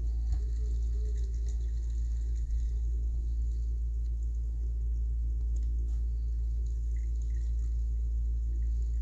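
A steady low rumble and hum, with a few faint clicks.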